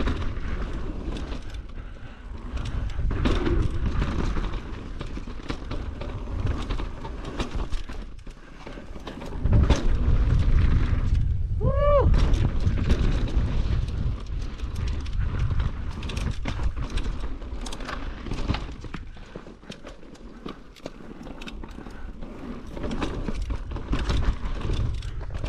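A downhill mountain bike rides fast over a dirt jump trail, with wind rumbling across the on-board microphone. Clicks and knocks come from the bike as its tyres and suspension hit the dirt. The rumble swells loudest about ten seconds in, and near the middle there is one short squeal that rises and then falls in pitch.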